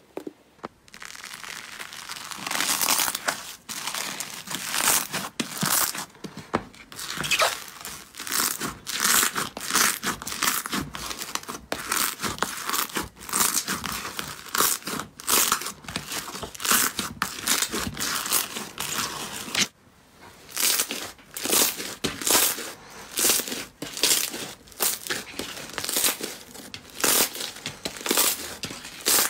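Slime being squeezed and stretched by hand: dense crackling and popping, with a brief pause about two-thirds of the way through.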